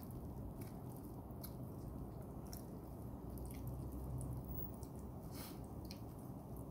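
Faint wet clicks and squishes of chicken biryani being eaten by hand: fingers working the rice and the mouth chewing, a few sharp smacks here and there. A steady low background hum runs underneath.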